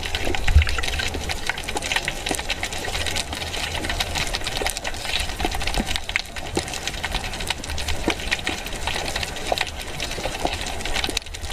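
Underwater ambience heard through the camera: a dense, irregular crackle of small clicks over a steady low rumble.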